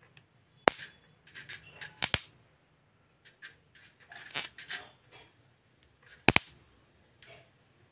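Electric mosquito racket's high-voltage mesh arcing to a metal screwdriver held against it: sharp spark snaps, the loudest about a second in, two seconds in (a double) and six seconds in (a double), with fainter crackles between. The snaps show that the racket's high-voltage circuit is working after the repair.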